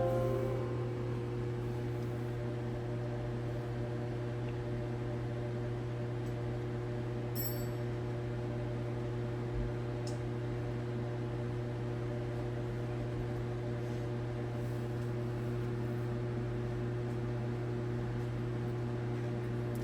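Steady machine hum from a running fan or motor, with a few constant tones held throughout. A brief faint high chirp comes about seven seconds in.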